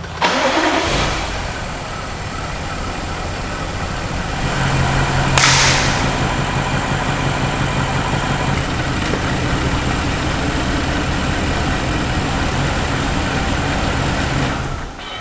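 BMW N63TU 4.4-litre twin-turbo V8 running rough at idle with a misfire: bank 1 doesn't run right and the engine has low compression. A brief loud hiss comes about five seconds in.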